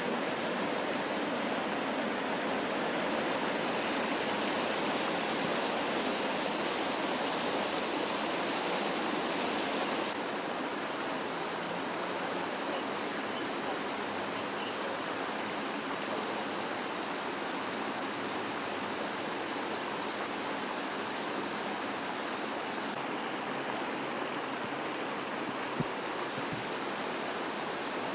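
Floodwater from a burst pipe rushing and splashing over pavement and curbs: a steady hiss of fast-running water that turns a little duller about ten seconds in.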